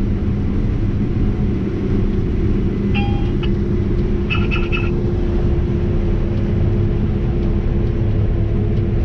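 Steady drone of a Case IH 9250 Axial-Flow combine's 550 hp engine and threshing machinery, heard from inside the cab. A cab monitor gives one short electronic beep about three seconds in, then three quick beeps a second later.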